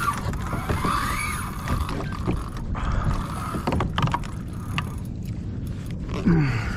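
Wind and water noise around a fishing kayak, with scattered clicks and knocks of fishing tackle being handled and a short rising-and-falling whistle-like tone about a second in.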